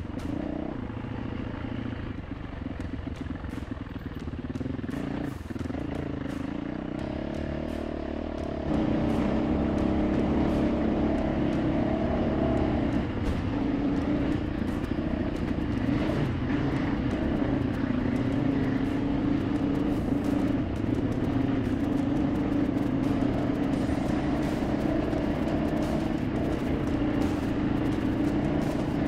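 Dirt bike engine running on a singletrack trail with many sharp knocks and rattles over the terrain. About nine seconds in, the engine gets clearly louder and stays up, as if on more throttle.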